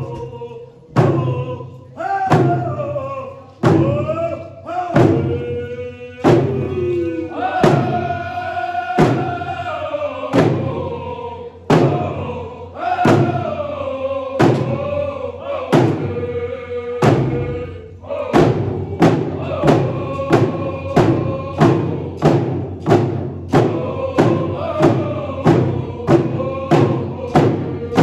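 A group of voices singing a song together over hand drums struck in unison. The drumbeat is slow, about one every second and a bit, then quickens to about two beats a second some eighteen seconds in.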